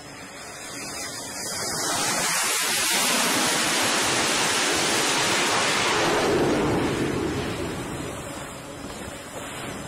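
Jet fighter engine noise from an F/A-18 Hornet-type carrier jet approaching the deck. It swells over a couple of seconds, stays loud for about four seconds, then fades away.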